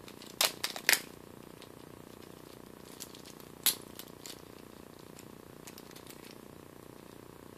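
Gold-tone metal link watch bracelet and its fold-over clasp clicking as they are handled: a quick run of sharp metal clicks in the first second, two more a few seconds in, then a few faint ticks as the clasp is worked open.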